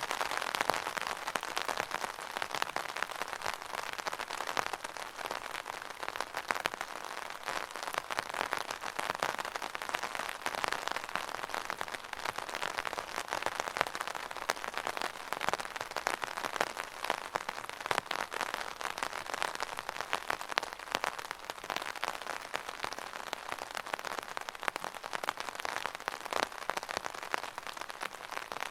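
Steady rain pattering on the fabric of an umbrella: a dense, even spatter of countless small drop impacts, without let-up.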